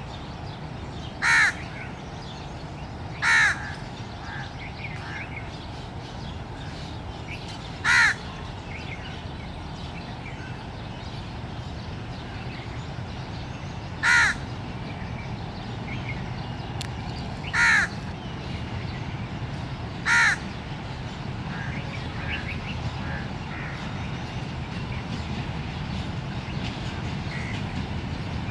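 Crows cawing: six short, loud single caws spread over about twenty seconds. Beneath them a diesel locomotive and its passenger train give a low, steady rumble as they roll slowly past, growing louder toward the end.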